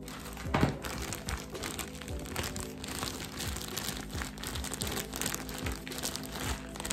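Background music with a steady beat, over the crinkling and rustling of plastic being handled; the crinkling is loudest about half a second in.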